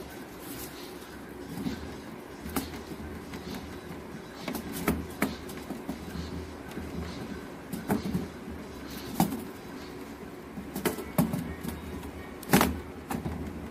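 Handling noise: irregular clicks and knocks over a low steady hum, with the loudest knock near the end.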